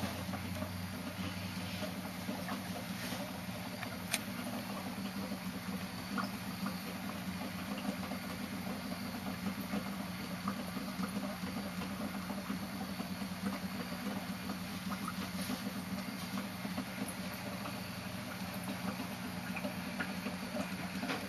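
Steady low mechanical hum, with a few faint clicks scattered through it and a sharper one about four seconds in.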